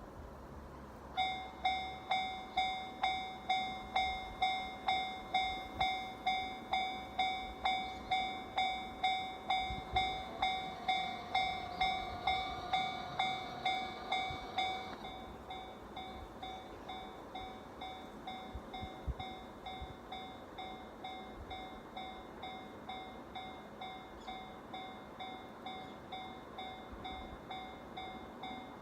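Japanese railway level-crossing alarm starting about a second in: an electronic bell ringing about twice a second. Roughly halfway through it drops to a quieter level and keeps ringing.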